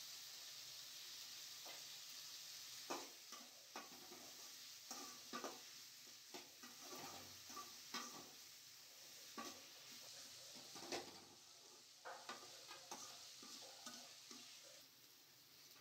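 Food sizzling in hot oil in a pan, with a metal utensil knocking and scraping against the pan at irregular moments as it is stirred. The sizzle thins a little near the end.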